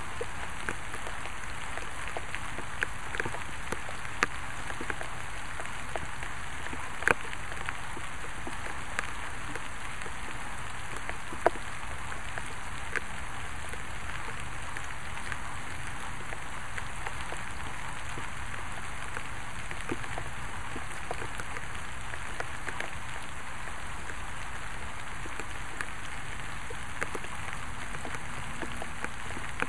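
Steady rain falling, with scattered single drops ticking sharply close by, the loudest about seven and eleven seconds in.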